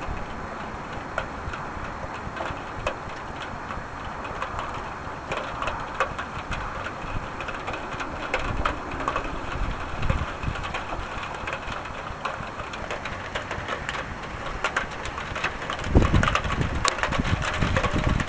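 Steady rain falling, with scattered drops ticking close by; a low rumble swells near the end.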